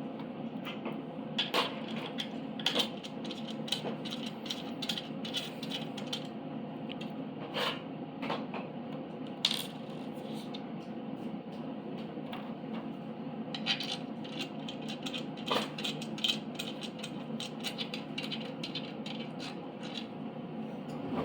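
Small metal parts clicking and rattling in irregular taps and scrapes as a CNC machine kit's frame is assembled by hand, over a steady low hum.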